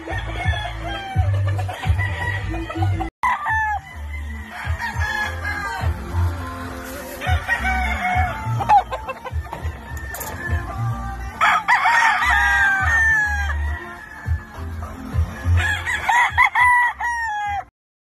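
Gamefowl roosters crowing again and again, the crows sometimes overlapping, with the loudest crows about two-thirds of the way in and near the end, over background music with a heavy bass beat. The sound cuts off abruptly just before the end.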